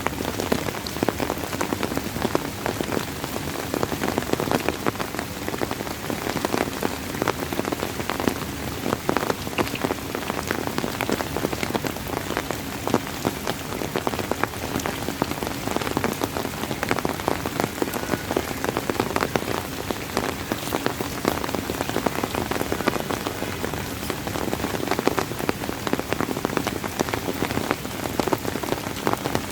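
Steady rain falling on a surface: a dense, even hiss with many distinct drops pattering throughout.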